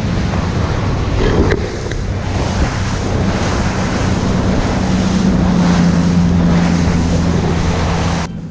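Small fishing ferry boat under way at sea: a steady engine drone under loud rushing water and wind buffeting the microphone. The drone grows stronger after the middle, and the sound cuts off suddenly just before the end.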